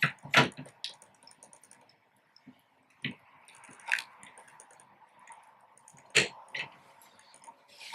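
A handful of sharp clicks and light knocks, spread over several seconds and loudest about six seconds in, from the dispense head and its mounting nuts being fitted by hand to the front panel of a soft ice cream machine.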